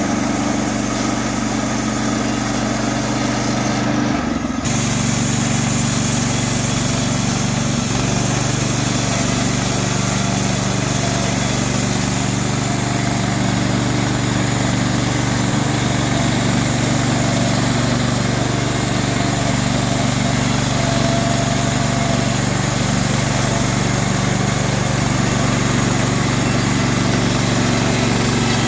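Gasoline engine of a TMG-PSM30 portable band sawmill running steadily at full speed while the band blade saws through a large log, with a hiss from the cut over the engine's hum.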